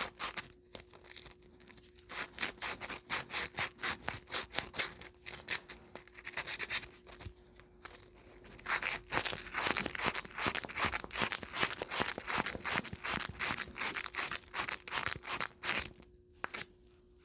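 Sandpaper scrubbed back and forth over a short piece of copper pipe, several rasping strokes a second, cleaning the pipe bright before soldering. There are brief pauses about eight seconds in and near the end, and a faint steady hum underneath.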